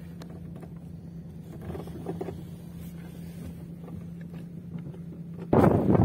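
A vehicle engine running with a steady low hum. About five and a half seconds in it cuts to a loud rush of wind on the microphone, with footsteps crunching on gravel.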